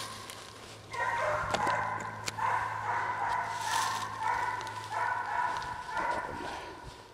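Deer-hunting dogs baying on a deer's trail, a run of repeated long, drawn-out calls about every second.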